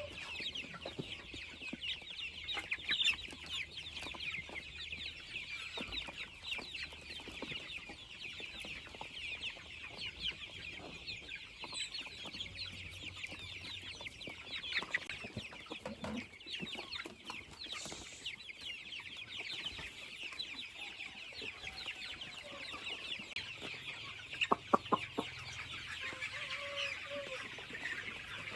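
A flock of young chickens peeping continuously in a dense, high-pitched chorus of many short calls. A few sharp knocks come close together about 25 seconds in.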